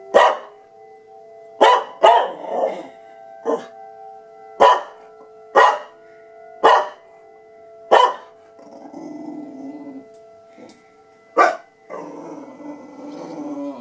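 Cocker spaniel barking in single sharp barks, about nine of them, set off by an emergency warning siren test. Steady siren tones run underneath, and softer, lower vocal sounds from the dog fill the pauses near the end.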